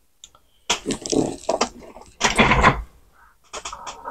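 Loud rustling and knocking as cables are handled and plugged into the opened Sony CDP-CX355 CD changer. Near the end come a few clicks, then a steady whine as the changer's motor-driven mechanism starts moving on first power-up after its belt replacement.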